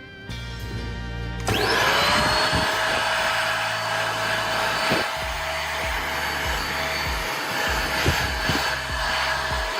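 A small electric power tool switched on about a second and a half in: its motor spins up quickly and then runs at a steady high whine, with a few light knocks as it works the metal.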